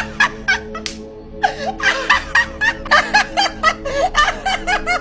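A person snickering in quick, repeated short bursts, a few at the start and then a steady run of about three to four a second from about a second and a half in, over background music with a held chord.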